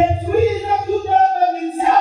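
Slow background worship music with sustained held chords, and a low bass note under the first second or so.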